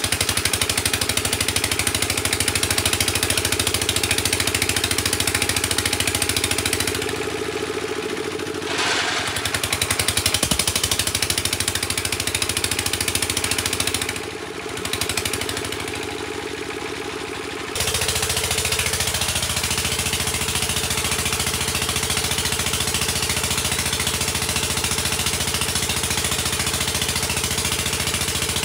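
Engine of a water-well drilling rig running steadily. Its load shifts several times: it drops about a quarter of the way in, picks up again, dips briefly near the middle, then steps up and holds steady for the last third.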